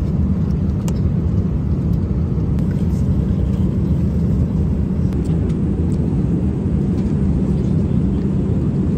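Steady low rumble of a moving vehicle, with a few faint clicks.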